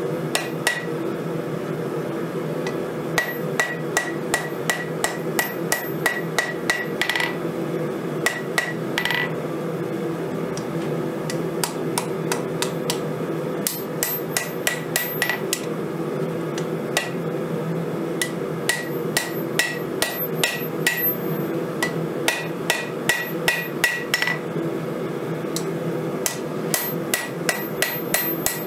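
Hand hammer striking red-hot steel on the face of a Vevor 132-pound anvil while a knife blank is forged. The blows come in runs of about two a second with short pauses, each with a brief bright ring from the anvil. A steady low hum runs underneath.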